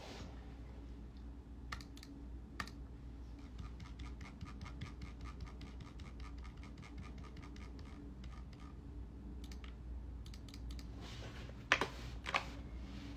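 Faint typing on a computer keyboard: scattered keystrokes, then quick runs of clicks, with two louder clacks near the end, over a low steady hum.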